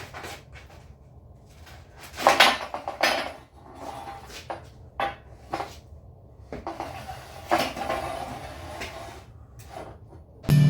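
A 1-inch round steel tube knocking, rattling and scraping against a concrete bending jig as it is turned around and repositioned: a run of irregular metallic knocks, loudest about two to three seconds in.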